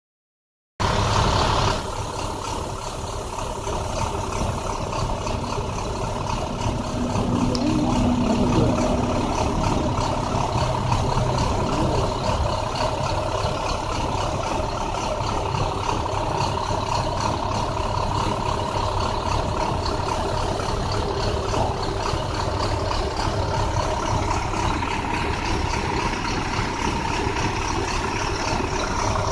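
2009 International bus engine running steadily with an uneven, rough pulse: the bad misfire the video is about. It starts abruptly about a second in with a brief louder rush.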